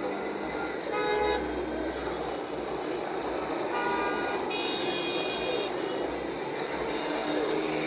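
City street ambience: steady traffic noise with car horns honking, briefly about a second in and near four seconds, then a longer higher-pitched honk around five seconds in.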